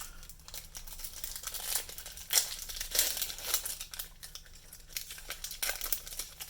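Foil wrapper of a Yu-Gi-Oh booster pack crinkling irregularly as it is handled and torn open, loudest about two and a half and three seconds in.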